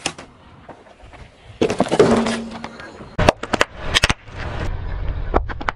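Car tyre rolling over and crushing things: a crunching, creaking squash of a polystyrene foam takeout box, then a quick run of sharp cracks and pops as a brittle blue-filled item breaks under the tyre.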